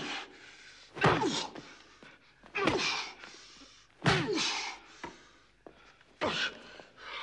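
Four heavy blows land on a man's body, each a thud followed at once by his short cry of pain falling in pitch.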